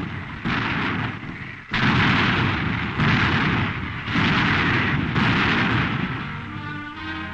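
A run of heavy naval gun blasts, about one a second, each starting sharply and fading before the next: 8-inch/55 caliber rapid-fire turret guns firing at rapid-fire speed. Brass-led orchestral music comes in near the end.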